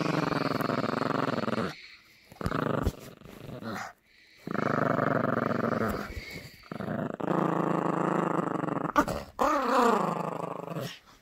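Yorkshire terrier puppy growling in play during a tug-of-war over a plush toy, in several long growls with short breaks between them.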